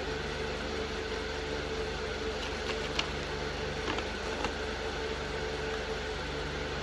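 Steady background hum with level tones, like a room appliance or fan running. A few small sharp clicks come between three and four and a half seconds in, typical of handling toy packaging during an unboxing.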